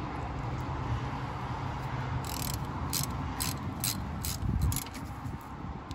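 Hand ratchet wrench clicking in short back-strokes, about two a second, while running in the brake hose banjo bolt on a caliper.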